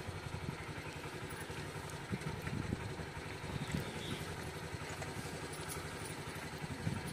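Motorcycle engine idling steadily, a low, even running sound with fast regular pulsing.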